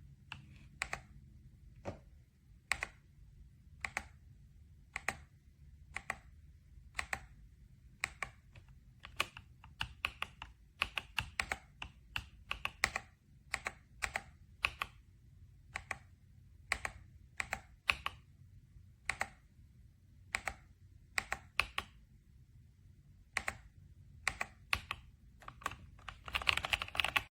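Typing on an RK Royal Kludge S98 mechanical keyboard with pale green tactile switches and PBT keycaps. It starts with slow, spaced keystrokes about one a second, then quicker runs of keys in the middle and a fast flurry near the end.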